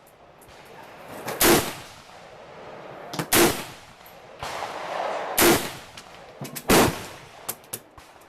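Gunshots at a shooting range: four loud, sharp shots about one and a half to two seconds apart, each with a short echo, and several fainter, more distant shots between them near the end.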